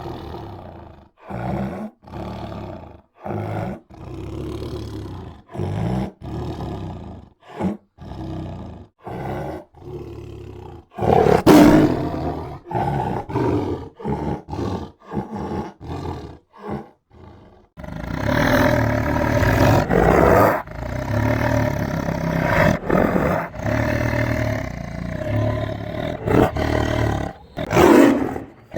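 Tiger roaring: a string of short separate roars with brief pauses between them, the loudest about halfway through, then continuous overlapping roaring from a little past halfway, with one more loud roar near the end.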